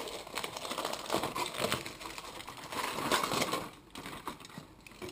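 Aluminium foil crinkling and rustling in irregular crackles as hands pull it back from a cake tin and turn the cake out onto a wire rack. The crackling goes quieter in the last second or so.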